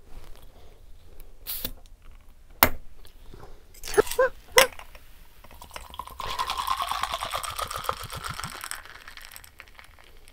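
A few sharp clicks and knocks of glass and cap, then Bundaberg mango sparkling drink poured from its glass bottle into a tall glass from about six seconds in. The pouring rises in pitch as the glass fills and settles to a fizzing hiss as the drink foams up.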